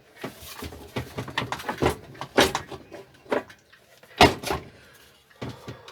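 Lawn mower parts and tools being handled during an engine removal: a run of knocks and clanks, the loudest about four seconds in.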